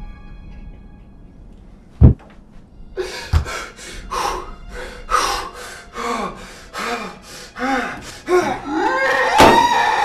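A heavy thump about two seconds in, then a person's ragged gasping breaths with short voiced whimpers, repeating for several seconds. Near the end comes a sharp hit and a long held call begins.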